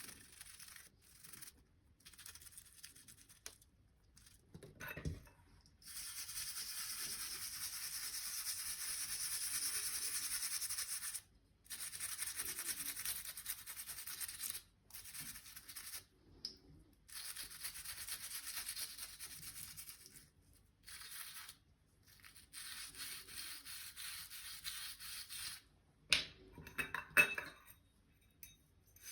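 A brush scrubbing a coffee maker part, in passes of one to a few seconds with short pauses between them. A few sharp clinks and knocks come near the end.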